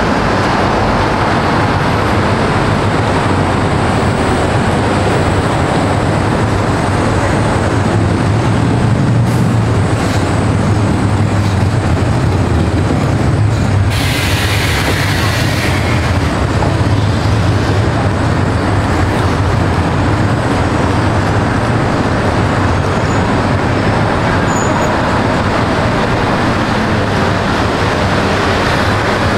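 Steady low rumble of vehicle noise, with a brief hiss of about two seconds some fourteen seconds in.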